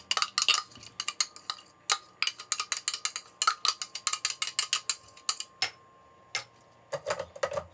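A spoon clinking and tapping against a blender jar and dish, several quick irregular knocks a second, while the blended berry mix is scooped out. The tapping stops about five seconds in, with two single clicks after.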